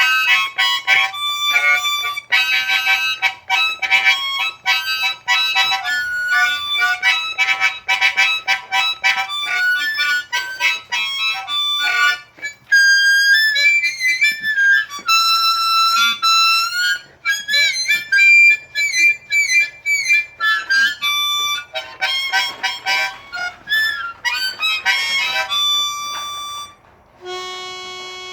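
Hohner Marine Band diatonic harmonica in D played solo in first position, pre-war country-blues style: rhythmic repeated chords, then held single notes, several of them bent.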